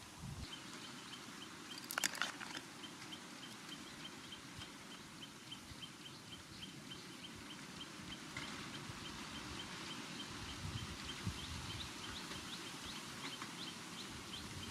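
A faint, steady run of short high chirps, about three a second, with a brief rattle of clicks about two seconds in and a few quick rising chirps near the end, over a low rustling background.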